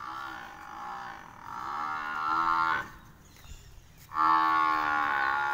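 Young Murrah buffalo bull bellowing twice. The first low, drawn-out call lasts nearly three seconds and grows louder; the second, louder call starts about a second later.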